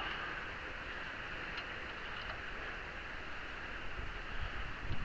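Steady background hiss, with a few faint clicks and some light low knocks near the end.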